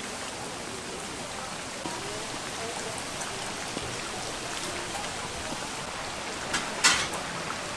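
Doughnuts deep-frying in hot oil, a steady sizzle, with a couple of sharp clicks near the end.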